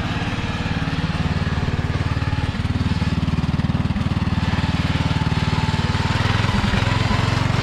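Racing riding lawn mower's engine running steadily with a fast, even putter as the mower drives across the yard.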